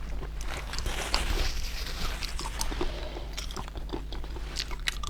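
Close-miked chewing and biting of stuffed prawns, a run of many short clicks and crunches from the mouth.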